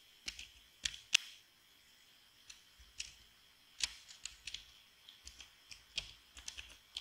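Computer keyboard keystrokes: irregular, sharp key clicks as a word is typed, in small clusters with short pauses between.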